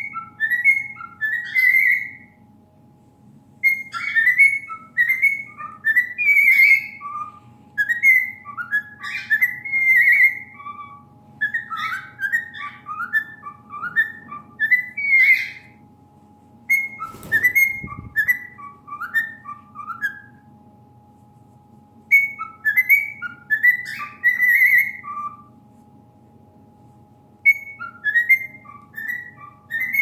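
Cockatiel whistling, phrase after phrase of short gliding notes with pauses of a second or two between phrases. One knock about halfway through.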